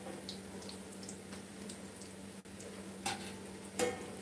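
Hot water cornbread patties frying in hot oil in a skillet, a faint sizzle with small scattered crackles. A metal slotted spatula clicks against the pan twice, a little after three seconds in and again near four seconds.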